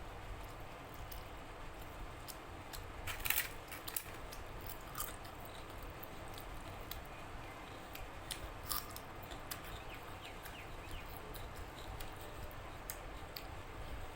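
Close-up mukbang eating sounds: a person chewing mouthfuls of rice, dal and chicken curry, with many small irregular mouth clicks and a louder cluster about three seconds in.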